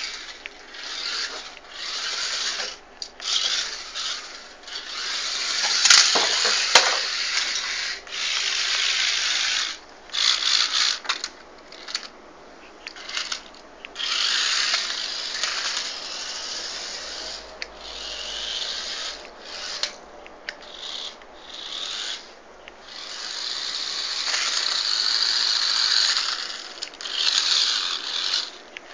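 Mini 4WD RC car driven in stop-start bursts: its small electric motor and drivetrain whir with a hissing, grinding noise, each run lasting one to four seconds before it cuts off.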